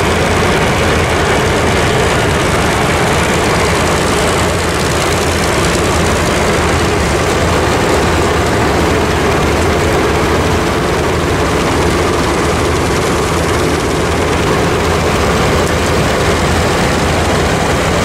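Heavy farm machinery running steadily: a loud, constant engine drone with a broad mechanical noise over it.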